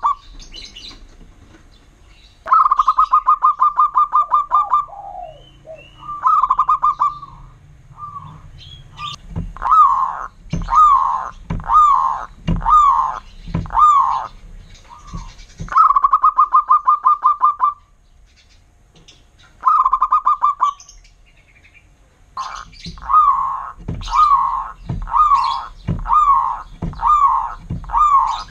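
Zebra dove (perkutut) song: rapid rolling trills a second or two long, alternating with runs of short, clipped coo notes repeated about three every two seconds.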